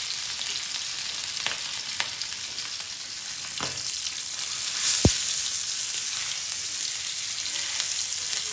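Marinated fish steaks shallow-frying in oil on an iron dosa tawa, sizzling steadily. A few sharp clicks come through, the loudest about five seconds in, as a steel spatula scrapes and knocks the pan while turning the fish.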